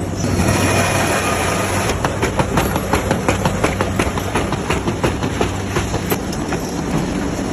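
A machine running steadily with a low hum and a dense, irregular rattle of clicks.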